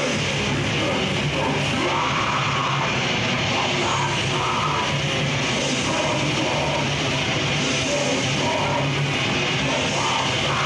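Death metal band playing live: distorted electric guitars and drum kit, loud and dense.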